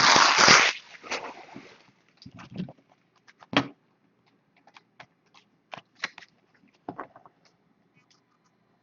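Baseball trading cards being handled and slid against each other: a burst of rustling at the start, then scattered soft clicks and taps.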